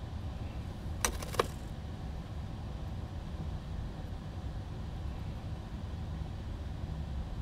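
Steady low hum with two sharp clicks, about a second in and half a second apart.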